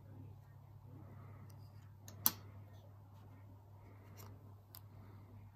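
A few light clicks and taps of plastic coin capsules being handled and set down on a table, with one sharper click about two seconds in, over a low steady hum.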